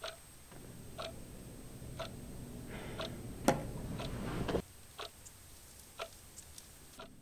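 A clock ticking steadily, about once a second. A low hum sits under the ticks for the first two-thirds and then cuts off.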